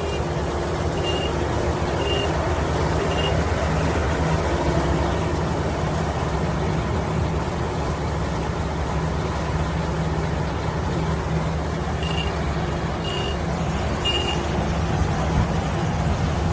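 Crawler rice combine harvester running steadily, its engine and threshing machinery making a dense, even noise. A short high beeper sounds about once a second at the start and again three times near the end.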